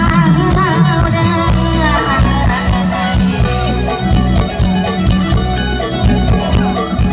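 Live Thai Isan band music played loud over a PA system: a woman sings a melody over a full band with a steady drum beat.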